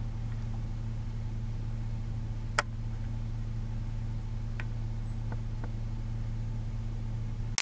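Vehicle engine idling with a steady low hum, with a sharp click about two and a half seconds in and a few faint ticks later.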